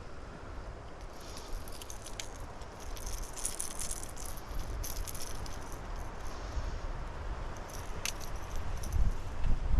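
Light rattling and clicking in clusters for several seconds, then a single sharp click, with low rumble near the end.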